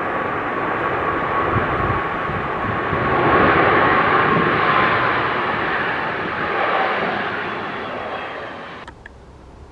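Jet airliner passing close by, its engines giving a dense rushing noise with a steady whine that slides slightly lower in pitch as it goes. Loudest about four seconds in, then fading, until the sound cuts off abruptly near the end.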